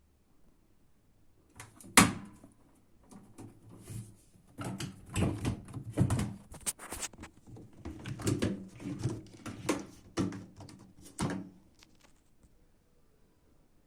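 Irregular knocks, clicks and rubbing of hands working on washing-machine parts, with one sharp knock about two seconds in.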